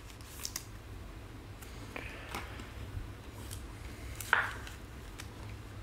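Trading cards being handled: soft rustles and light clicks of card stock and plastic, with one brief louder scrape about four seconds in.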